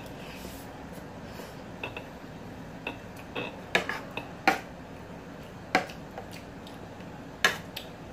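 Metal spoon and fork clicking and scraping against a dinner plate: a scattering of sharp clinks, louder ones from about four seconds in, over a steady low room hum.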